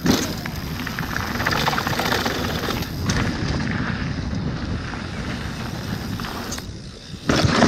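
Mountain bike riding down a dirt trail: tyres rolling over the ground and the bike rattling over rough terrain, with wind on the action camera's microphone. A sudden louder clatter comes near the end.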